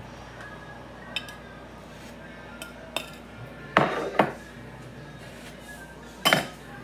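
Kitchen utensils and dishes clinking and clattering on a counter. A few light clicks come first, then loud clatters about four seconds in and again near the end.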